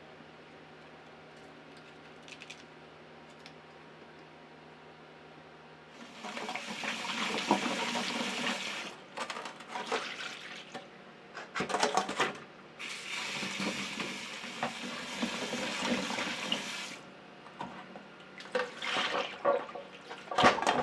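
Running water splashing in a sink in several bursts, starting about six seconds in after a quiet stretch of room tone.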